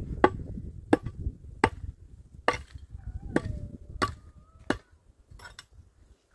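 A series of eight sharp, evenly paced blows, about one every three-quarters of a second, like chopping with a hand tool.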